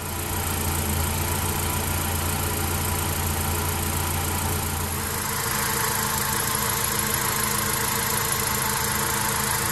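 2015 Honda CR-V's 2.4-litre four-cylinder engine idling, heard from beneath the car as a steady hiss over a low hum. The low hum drops away about five seconds in.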